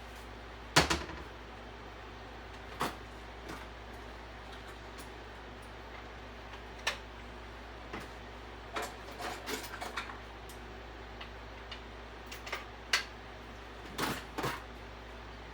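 Scattered sharp clicks and knocks of kitchen things being handled, such as an electric hand mixer and its beaters being got out and set up, the loudest about a second in and again near the end, over a low steady hum.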